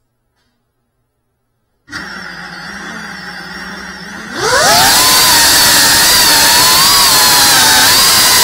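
Cinewhoop FPV drone's brushless motors and propellers: after silence, they start about two seconds in with a steady whine at idle, then a little past four seconds the throttle comes up and the pitch rises sharply into a loud, wavering high buzz as the drone takes off and flies.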